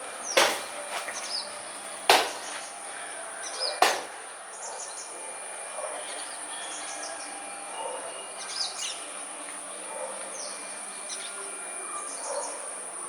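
Small birds chirping on and off, with a steady high insect buzz behind them. Three loud, short sounds of unclear source cut in during the first four seconds, about every two seconds.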